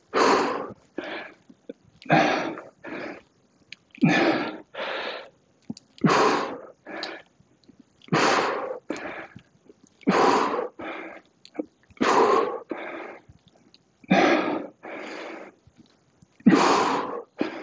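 A man breathing hard and forcefully in time with dumbbell split squat reps: a strong burst of breath about every two seconds, each followed by a softer one.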